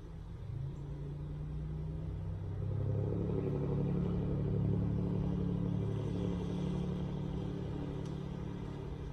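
Motor vehicle passing by outside, a low rumble that builds a few seconds in and slowly fades.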